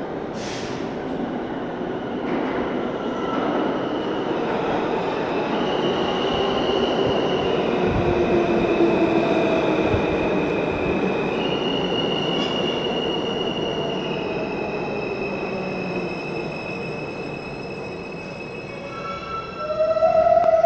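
New York City subway train pulling into an underground station and braking to a stop: wheels rumbling on the rails, with wheel squeal and high steady whines that change pitch in steps. A louder tone starts near the end as the train halts.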